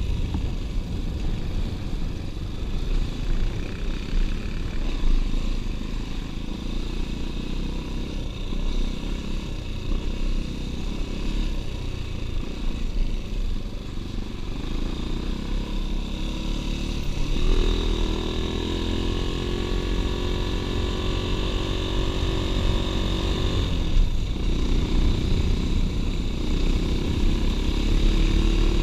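Dirt bike engine running under way with wind rumbling on the microphone. About two-thirds in, the engine note comes up clearly and climbs steadily, dips briefly, then climbs again.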